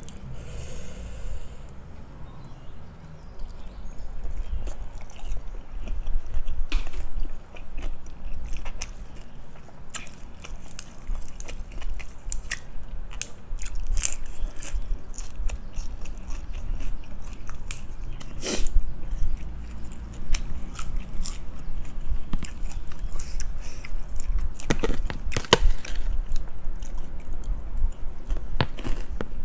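Close-miked chewing and crunching of a mouthful of crisp food from a meal of spicy cucumber salad and pork cracklings, with sharp crunches scattered throughout and a few louder ones about two-thirds in and near the end.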